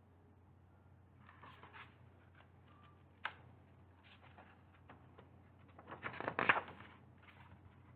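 Paper pages of a picture book being handled and turned: soft rustles, a single click a little after three seconds, and the loudest rustle as the page turns about six seconds in.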